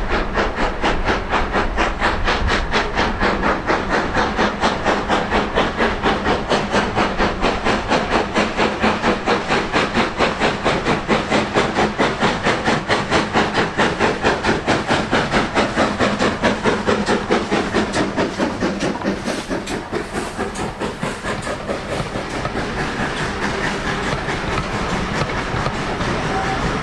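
Steam locomotive working hard as it approaches, its exhaust beating in a fast, even rhythm. Past the middle the beats soften and the pitch dips as it passes. The coaches follow with wheel clatter on the rails.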